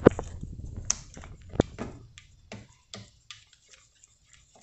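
Wooden spoon stirring thick chocolate cream in a stainless steel pot, knocking and scraping against the pot in irregular clicks. The clicks are loudest in the first two seconds, then thin out and fade.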